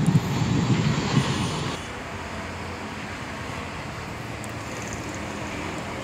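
Steady rushing of river water pouring over a low weir-bridge, with a louder low rumble for the first couple of seconds.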